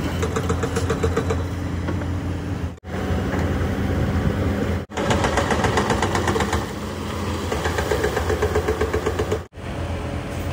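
Diesel engine of a tipper truck running steadily with a fast, even clatter while the hydraulic hoist tips the loaded body and dumps soil. The sound cuts out very briefly three times.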